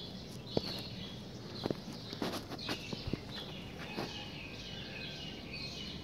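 Small birds chirping now and then over a steady outdoor background hiss, with scattered sharp clicks and knocks. The loudest knocks come about half a second in and again near two seconds.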